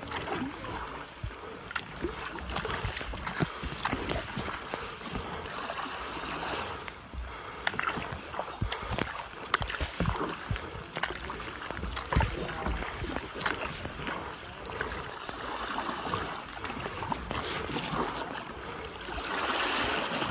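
Kayak paddle dipping and splashing in moving river water, with the water running and sloshing around the hull and many scattered knocks and bumps.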